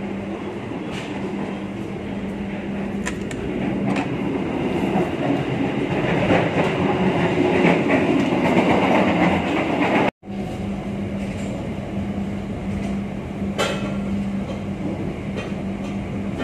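Running noise heard inside a moving passenger train coach: a steady rumble of wheels on rails with a low hum and a few sharp clicks. It grows louder through the middle, as an open gangway door between coaches is passed. It cuts out for an instant about ten seconds in, then goes on more quietly.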